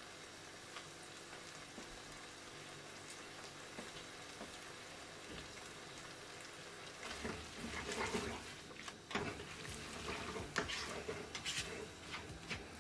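Flat rice noodles with chicken and prawns sizzling steadily in a hot wok while the sauce cooks down and caramelises. From about seven seconds in, a spatula scrapes and tosses the noodles against the pan in irregular strokes.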